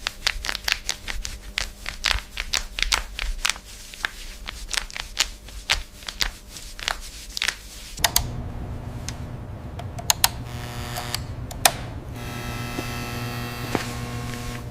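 A quick, irregular run of light clicks and taps, several a second, for about eight seconds; then a steady low hum with a few sharp clicks.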